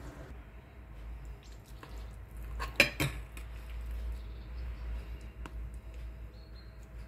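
Kitchen utensils and dishes clinking during food preparation: one sharp clatter about three seconds in and a few lighter knocks, over a low steady hum.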